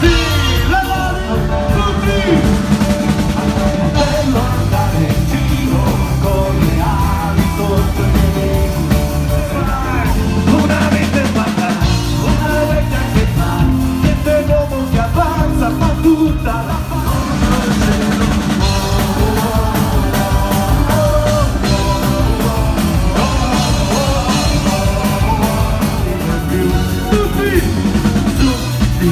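Loud live band music: a singer over a drum kit and band playing with a steady beat.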